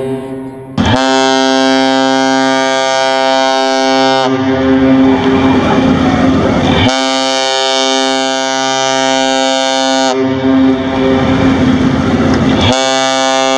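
Ship's horn of the Fednav bulk carrier Federal Asahi sounding a long, steady, deep blast, following a cut from another ship's horn about a second in. Twice, for a few seconds each time, a rushing noise rises over it and the horn's upper tones fade.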